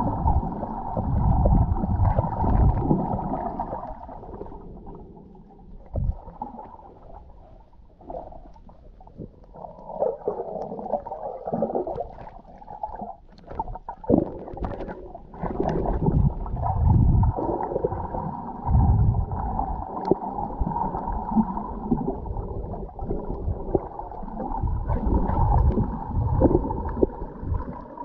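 Muffled underwater water noise picked up by a camera held just below the surface: gurgling and sloshing with low rumbling surges that swell and fade every few seconds, and a few faint clicks.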